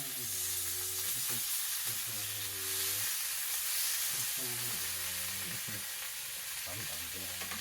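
Butter and food frying in a hot pan: a steady sizzle.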